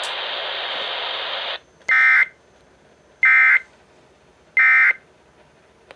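Emergency Alert System end-of-message (EOM) data tones: three short, shrill, buzzing bursts of digital data, about 1.3 s apart, which mark the end of the warning. They follow a steady hiss that cuts off about a second and a half in.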